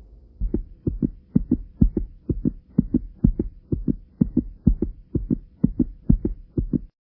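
Rhythmic low thuds in pairs, like a heartbeat, about two beats a second over a faint steady hum; they stop suddenly just before the end.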